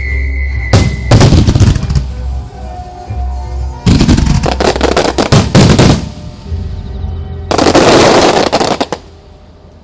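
Fireworks heard close up at the launch site: rapid volleys of shells firing and bursting, some strokes fast enough to sound like machine-gun fire, over music. Near the end comes a dense blast lasting about a second and a half, then the sound drops away suddenly.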